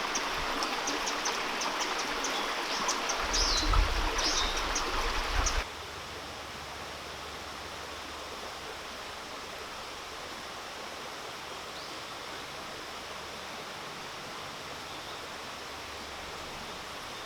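Mountain stream water running steadily. It is fuller and louder with short high ticks over it for the first few seconds, then drops abruptly about five and a half seconds in to a quieter, even rush.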